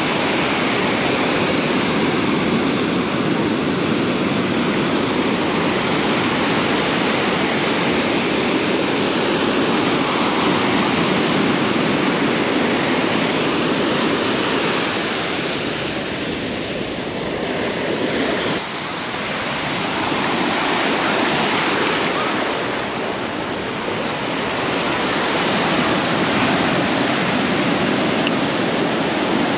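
Ocean surf breaking and washing up over wet sand at the water's edge: a steady rushing noise that swells and eases slowly, dipping briefly about two-thirds of the way in.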